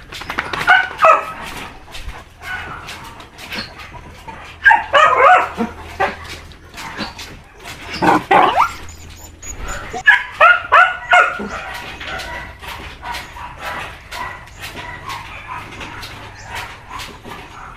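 Dachshunds barking and yipping in several short, loud bursts through the first eleven seconds, one near the eight-second mark sliding down in pitch, followed by quieter whining.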